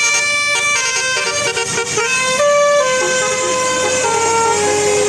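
Indonesian bus telolet horn playing a tune of held, stepped notes that mostly walk downward in pitch.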